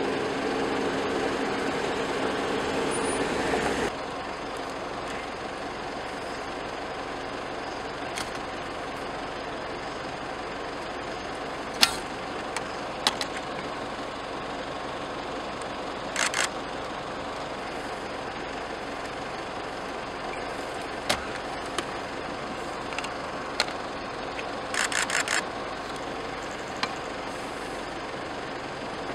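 Vehicle engine running steadily, louder for the first four seconds, then dropping away. Scattered sharp clicks and knocks come over it, with a quick run of about five near the end.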